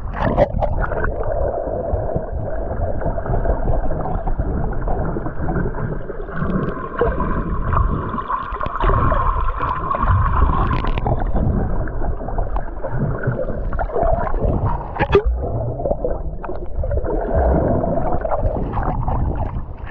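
Muffled sloshing and gurgling of seawater around the camera as a swimmer moves through the water, dipping below the surface, with a steadier hum for a few seconds in the middle.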